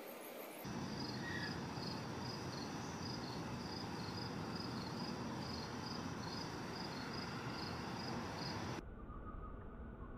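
A high, even insect chirp repeats about twice a second over a steady hiss, like a cricket calling. About nine seconds in the chirping and hiss cut off, leaving a faint low rumble.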